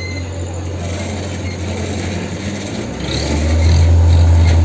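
Off-road vehicle engine running, then revving up loud and holding steady about three seconds in, working under load as a stuck vehicle is hauled up on a rope.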